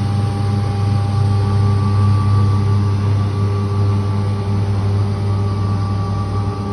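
CNC router cutting machine running steadily: a constant low hum with a couple of steady whining tones above it.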